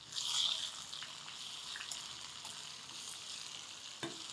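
Chopped onions sizzling in hot tempering oil in a small steel kadai. The sizzle is loudest at the start, then settles to a steady hiss. About four seconds in, a metal ladle clicks once against the pan as the onions are stirred.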